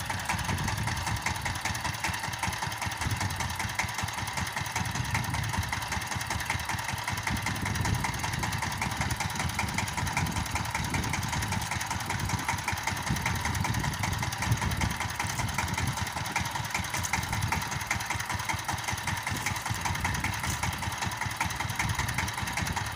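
Single-cylinder diesel engine of a two-wheel power tiller running steadily with an even chugging.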